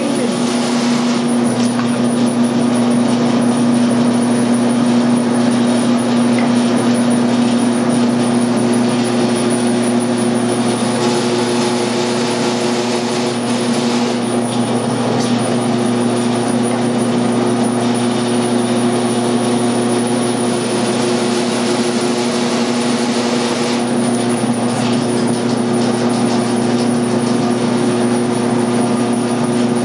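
Electric meat grinder motor running with a steady hum while ground meat is forced through its stuffing tube into a sausage casing.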